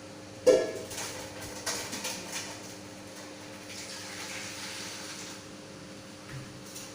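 Water being poured into a bucket of dishwashing-liquid mixture to top it up: a ringing knock about half a second in, then splashing and a steadier pour.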